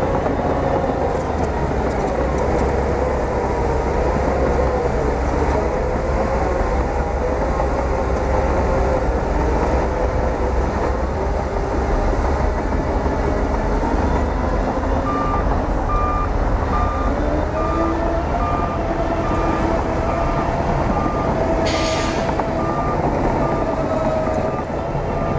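Bulldozer's diesel engine running steadily, its pitch wavering slightly. A little past halfway a reversing alarm starts beeping at an even pace, and a short, sharp noise sounds near the end.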